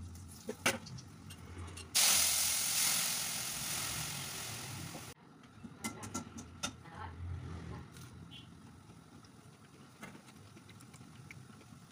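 Hot oil in a kadai sizzling loudly as ingredients go into a tempering of mustard seeds and dried red chilli. The sizzle starts suddenly about two seconds in, fades, and cuts off just after five seconds. A few light clinks of utensils come before and after it.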